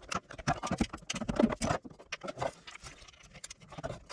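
Irregular clicks and knocks of a socket wrench on a long extension, tightening the differential end cover bolts to a low torque. The clicks come thick and fast in the first two seconds, then thin out.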